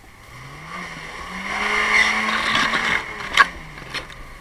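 Lada Niva (VAZ-2121) engine revving up as the car pushes through deep mud with its wheels spinning and churning, the revs held and then easing off near the end. A single sharp knock comes a little over three seconds in.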